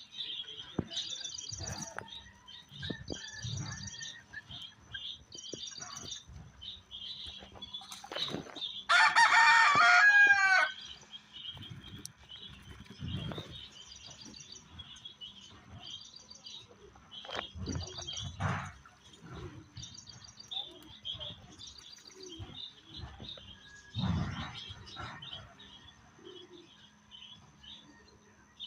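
Small birds chirping repeatedly, with one loud, drawn-out call lasting about two seconds around nine seconds in, and a few low thuds.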